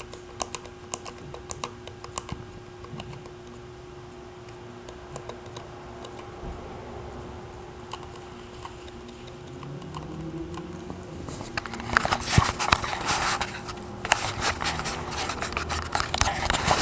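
Scattered sharp clicks of the front-panel push buttons on a GE Phoenix SX VHF mobile radio being pressed, over a steady faint tone. From about twelve seconds in, denser, louder scraping and knocking handling noise takes over.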